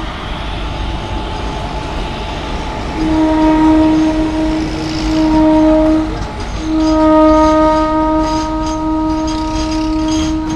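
Indian Railways WAG-7 electric locomotive passing with its running noise, its air horn sounding two long steady blasts: the first about three seconds in, lasting some three seconds, and the second following after a short gap and held on. Sharp clicks come in over the last few seconds.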